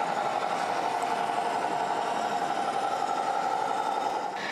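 A radio-controlled scale model truck running, a steady engine-like hum. Just before the end it switches abruptly to a different, higher-pitched steady hum.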